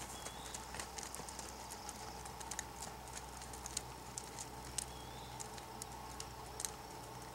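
Horse walking on a sand arena under a rider: faint, irregular light clicks and taps of hooves and tack over a steady low hum.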